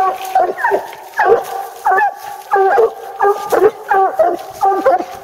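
Two coonhounds barking treed at the base of a tree: a steady, overlapping string of loud barks, about two a second, the hounds' signal that a raccoon is up the tree.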